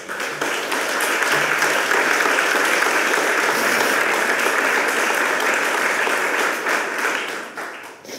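Audience applauding: dense clapping that swells in the first second, holds steady, then fades out near the end.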